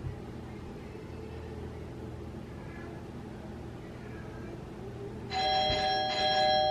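Doorbell chime ringing inside the house, starting suddenly about five seconds in with several held tones, over a low steady room hum.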